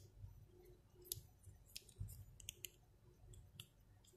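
Faint, scattered plastic clicks and taps from a GoPro Hero 7 Black action camera being handled: about half a dozen sharp clicks, two of them in quick succession about two and a half seconds in.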